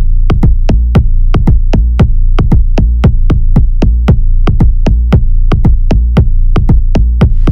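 Electronic dance music with a fast, even drum-machine beat over heavy bass.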